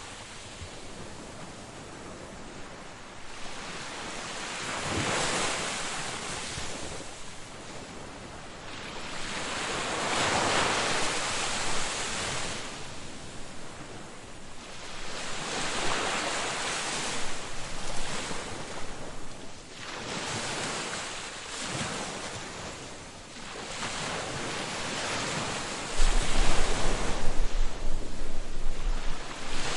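Ocean surf: waves breaking and washing up the beach in slow swells every few seconds. Near the end, a low rumble of wind on the microphone comes in and the sound gets louder.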